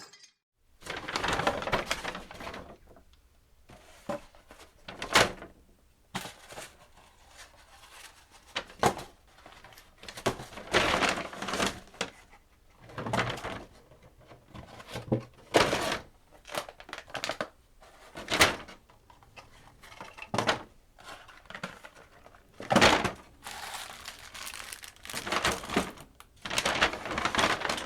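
Items being placed into a paper bag: the paper rustles and crinkles in irregular bursts, with sharp knocks as things land in the bag.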